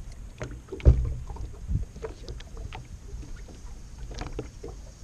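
Knocks and bumps of people moving about on a fishing boat, with a heavy thump about a second in and another shortly before two seconds, over a low steady rumble of water and wind against the boat.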